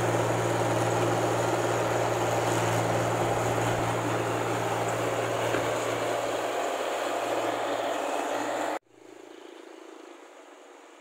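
A New Holland rice combine harvester's engine runs close by with a steady drone and a strong low hum. Nearly nine seconds in, the sound cuts off abruptly and gives way to a much quieter, steady sound of the harvester farther away.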